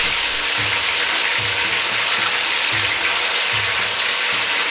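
Tofu cubes deep-frying in oil at about 170 °C in a carbon-steel wok: a steady, dense sizzle of bubbling oil. A soft low pulse repeats a little faster than once a second beneath it.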